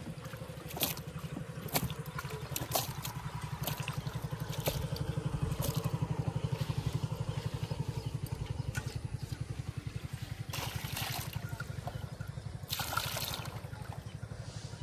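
An engine runs steadily, a fast, even low thrum. Light clicks and knocks of a steel bowl come over it, and water splashes and trickles twice near the end as the bowl is filled with canal water.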